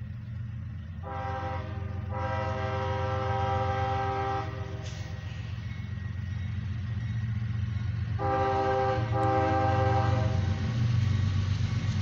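Air horn of an approaching CSX freight locomotive sounding for a grade crossing: a chord of several notes blown in long blasts, the first about a second in with a brief break, the second about eight seconds in. Underneath, the low rumble of the train grows louder as it nears.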